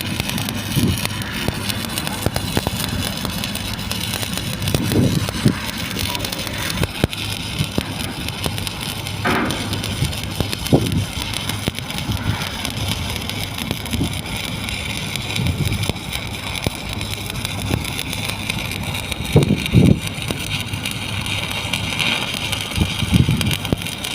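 Stick (shielded metal arc) welding arc crackling and hissing steadily during a flat-position weld, with a few low thumps now and then.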